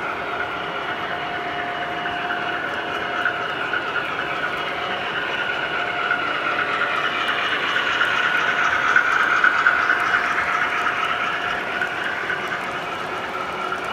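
MTH Premier ALCo PA model diesel locomotives pulling an express reefer and passenger cars past on an O-gauge layout: steady running noise of wheels on track and motors, growing louder as the train comes by about two-thirds in, then easing.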